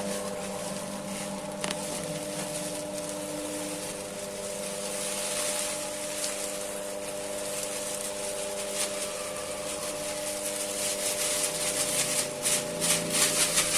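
Mini serundeng cooking machine running, its motor giving a steady hum while the stirrer rubs and scrapes through the coconut in the pan. The scraping grows louder and more uneven near the end.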